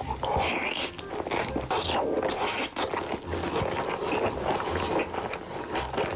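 Close-miked mukbang eating sounds: biting and chewing food with wet smacking, in irregular bursts of crunches and clicks.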